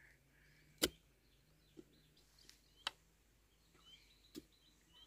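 A hoe chopping into dry field soil: four sharp strikes at uneven intervals, the first and loudest about a second in. Faint bird chirps sound between them.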